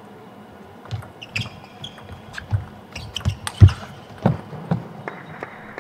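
Table tennis doubles rally: the celluloid ball clicking off rubber-faced rackets and the table in quick alternation, with brief shoe squeaks on the court floor. It starts about a second in, one hit near the middle is the loudest, and it ends shortly before the end.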